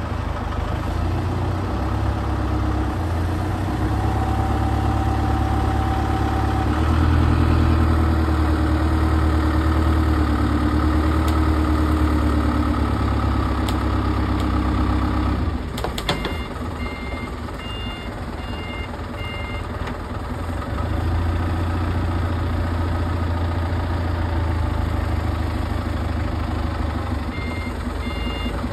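A loading vehicle's engine runs steadily and rises under load, then drops back after a short metallic clank about halfway through. A multi-tone reversing alarm then beeps in a steady on-off rhythm while the vehicle backs up. The engine picks up again, and the alarm returns near the end.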